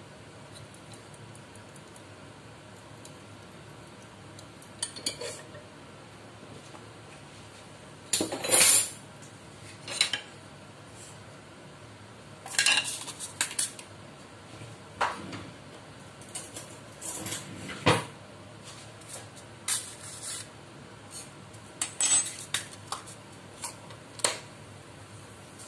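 Metal spoon and cooking utensils clinking and knocking against a non-stick cooking pot, a dozen or so separate clatters every second or two, over a low steady hiss.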